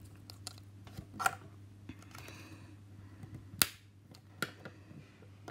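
Light plastic clicks and taps of a Flair Inky fountain pen being put back together by hand, a few scattered clicks with the sharpest about three and a half seconds in and a faint rustle in between.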